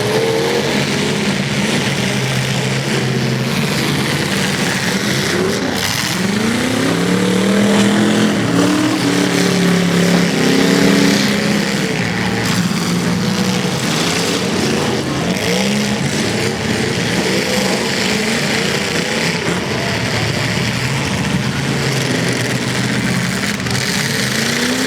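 Several demolition derby cars' engines revving up and dropping back over and over as the cars manoeuvre, loudest about a third of the way in, with a few short knocks of cars hitting each other.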